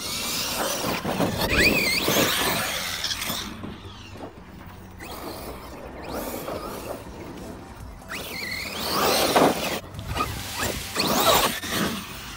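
ARRMA Kraton 6S brushless RC monster truck driven hard over loose dirt and grass, its electric motor whining up and down in pitch as it accelerates and brakes, with the tyres scrabbling on the dirt. It comes in two loud passes: one at the start, and another from about eight seconds in.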